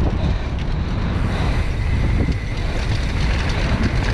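Mountain bike rolling downhill over a rough dirt trail, with wind buffeting the microphone and a steady run of small rattles and knocks from the bike.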